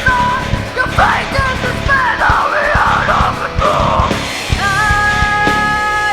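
Loud punk rock music with a busy drum beat, distorted guitar and yelled singing.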